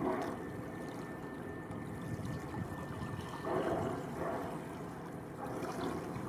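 Southern Resident killer whales surfacing and exhaling: short breathy blows, one at the start and a run of three from about three and a half seconds in.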